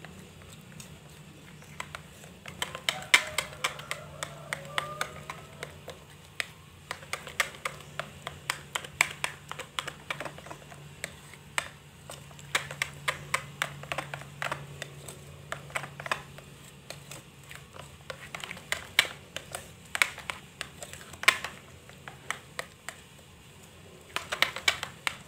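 Metal spoon stirring thick flour batter in a glass bowl, clicking against the glass in irregular runs of sharp taps: the batter being beaten until no lumps remain. A faint low hum runs underneath.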